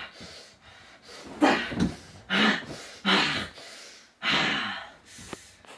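A person breathing heavily under a blanket: four or five loud, irregular breaths, a few with a short voiced edge.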